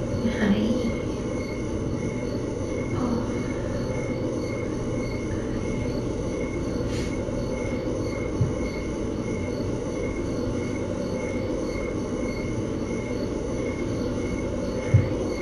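Steady low mechanical hum with a faint high chirp repeating a little more than once a second, and two brief soft thumps, one about eight seconds in and one near the end.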